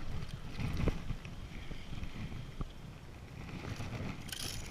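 Wind buffeting the microphone over choppy, lapping water, with a couple of light knocks.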